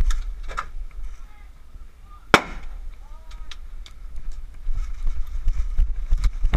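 An airsoft grenade going off: one sharp bang about two seconds in, the loudest thing here. Lighter scattered clicks and pops come before and after it.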